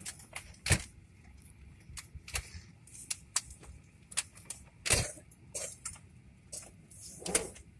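Irregular light clicks and three louder knocks, over a faint steady cabin hum.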